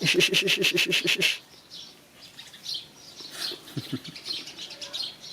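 A bird's rapid chattering call, a quick run of short falling notes at about eight a second, stopping after a little over a second. Fainter scattered bird chirps follow.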